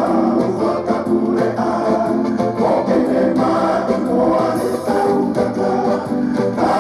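Recorded song: a group of voices singing together in harmony over electronic keyboard backing.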